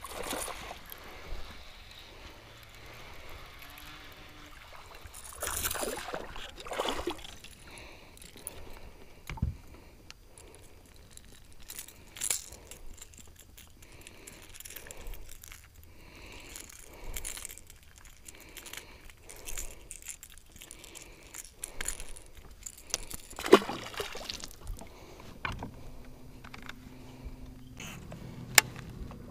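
A largemouth-type bass being landed and unhooked from a boat: splashing at the surface, then handling noises with the light metal jangle of the lure's treble hooks, and a few sharp clicks. A low steady hum starts near the end.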